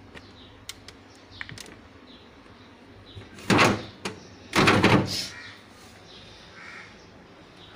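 Refrigerator being handled and shut: a few light clicks, then two short sliding, scraping sounds about three and a half and four and a half seconds in.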